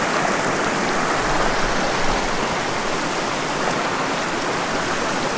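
Small mountain stream running over rocks: a steady, even rushing of water.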